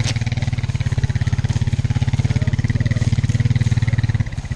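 Four-wheeler (ATV) engine running at steady throttle with a fast, even pulsing. Its note drops off a little before the end as the throttle eases.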